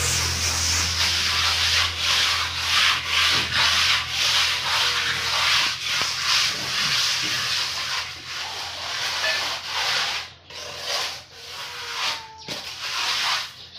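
Hand trowel scraping and smoothing wet cement plaster on a concrete block wall, in repeated strokes about one a second that grow sparser and quieter near the end.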